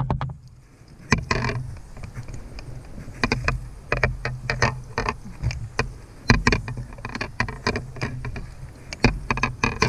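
Irregular knocks and clatter of hands and gear moving about in a canoe, over a steady low hum.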